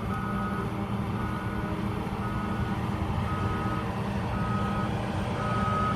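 Backup alarm of a 10-ton steel-wheel roller beeping about once a second as it reverses over the base course, over the steady running of its diesel engine.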